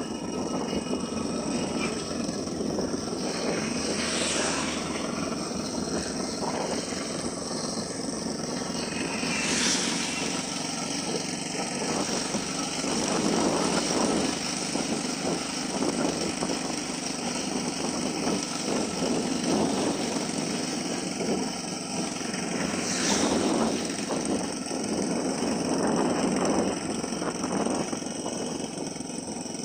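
Motorcycle riding along a paved road: steady engine and road noise, swelling briefly a few times.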